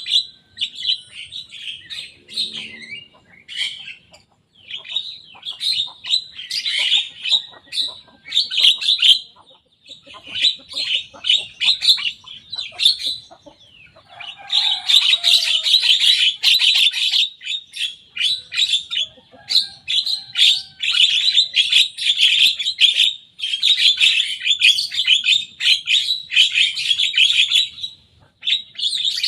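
Young Javan myna in full song: rapid, harsh chattering phrases broken by short pauses, then one long, nearly unbroken run from about halfway through.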